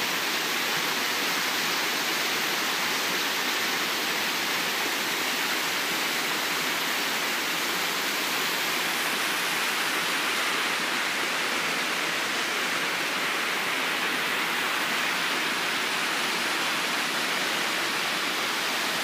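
Creek water rushing steadily down a broad, smooth sloping rock face in a white-water cascade: a natural rock waterslide.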